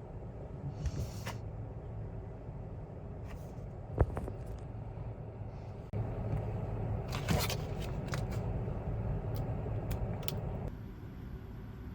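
Steady low rumble of vehicle noise, with a sharp click about four seconds in and a short scraping rustle a little past seven seconds; the background changes abruptly twice.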